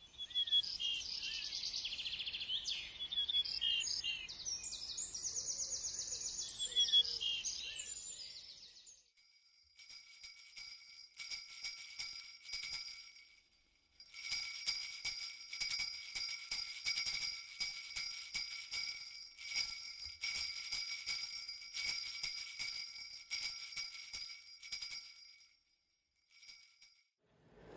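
Bright chirping, twittering sound effects for about the first eight seconds. Then jingle bells are shaken in rhythmic bursts, with a short pause around the middle, and they stop a little before the end.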